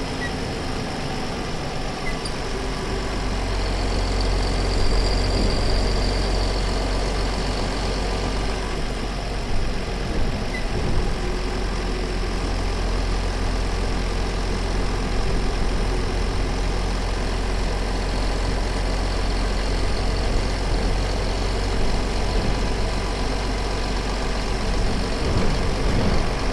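MAN Lion's City city bus engine running with a steady low drone, rising slightly a few seconds in.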